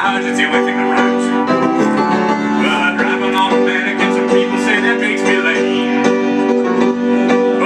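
Piano playing held chords, several notes sounding together and changing a few times.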